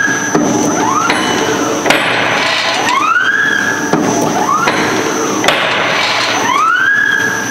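Para-dichlorobenzene tablet press running in steady cycles: a sharp clack from the press stroke about every two seconds, each followed by a rising whine, over a constant mechanical clatter.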